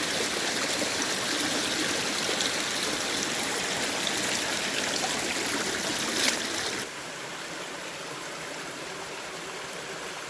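Steady rush of running water, like a small stream or trickle. A sharp click comes a little past six seconds, and then the water sound drops to a quieter level.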